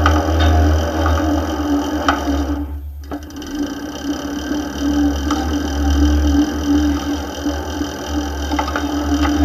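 Electronic CVT on a testbed running, its belt and pulleys spinning with a steady mechanical whir over a low hum; the sound dips briefly about three seconds in, then carries on.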